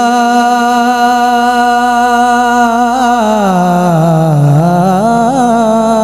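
A man singing a naat into a microphone, holding one long drawn-out note. The pitch sinks about halfway through and then climbs back to the first note.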